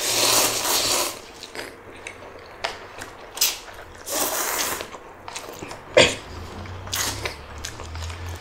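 Spicy black bean instant noodles being slurped and chewed: a long noisy slurp at the start and another about four seconds in, with shorter sharp sucking sounds between.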